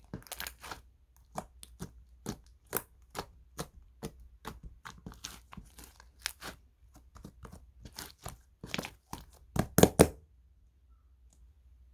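Toy slime being squished and pressed by hand, giving irregular sharp pops and clicks a few times a second. The loudest pops come about ten seconds in, then the sound stops.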